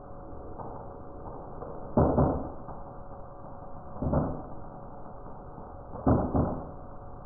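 Boxer dog chewing on a chew bone: three short bursts of gnawing, about two seconds apart.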